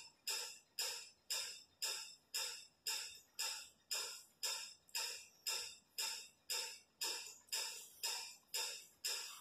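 A steady, machine-even ticking beat, about two and a half short clicks a second, each exactly like the last, as in the percussion of a looping backing track.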